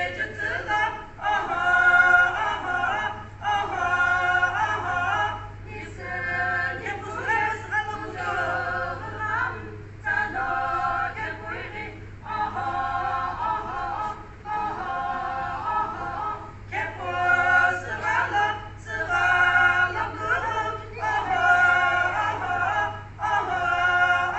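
A group of women singing a traditional Naga folk song together without accompaniment, in short repeated phrases of a second or two with brief breaks between them.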